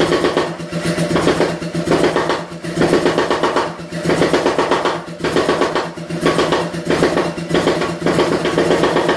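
Power hammer striking hot 1-inch steel bar in rapid runs of blows, forging a half-inch tenon, with brief pauses between runs about every second. A steady machine hum runs underneath.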